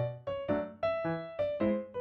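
Background music: a light keyboard tune of short notes that fade quickly, about four a second.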